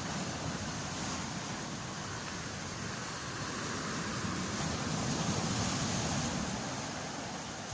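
Stormy Black Sea surf, a steady rush of waves up to two metres high that swells about halfway through.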